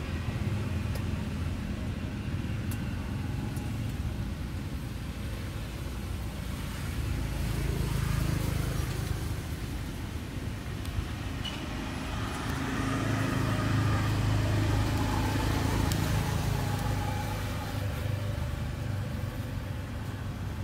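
Low rumble of road traffic, swelling as vehicles pass, once about 8 seconds in and again for several seconds after about 12 seconds.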